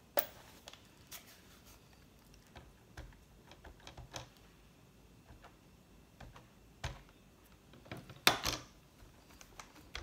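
Scattered light clicks and taps of a plastic ink pad being handled and dabbed onto a rubber stamp on a stamp-positioning platform, with a sharp click at the start and a louder knock about eight seconds in.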